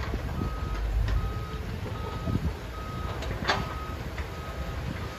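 A heavy-machinery backup alarm beeps at a single pitch, about one beep every three-quarters of a second, over the low running of diesel excavator and dump-truck engines. A sharp knock sounds about three and a half seconds in.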